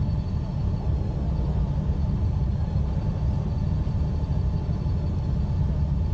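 Honda GoldWing F6B's flat-six engine running at idle: a steady low rumble with no change in pitch.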